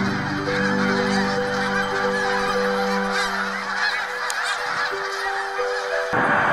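A large flock of snow geese calling, many overlapping calls at once, over background music with long held notes. About six seconds in, the music changes abruptly to a louder passage.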